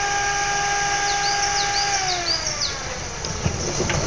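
Lada Niva climbing a steep dirt trail under power: a steady whine that falls in pitch about two seconds in as the revs drop. Birds chirp repeatedly over it.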